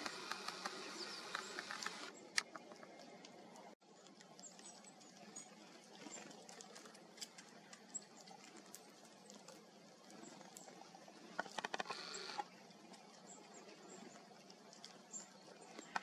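Faint, irregular clicks and ticks of seeds being handled and cracked at a plastic seed feeder by a squirrel and small birds, with a few faint high bird chirps.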